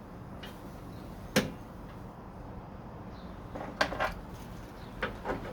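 A few sharp knocks and clacks of door hardware being handled and set down: one strong knock about a second and a half in, then a quick cluster of clacks near four seconds and a couple more near five.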